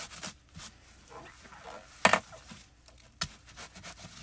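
Paper towel rubbed and wiped over a plastic stencil in short, irregular strokes, with a louder scrub about two seconds in and a sharp click a little after three seconds.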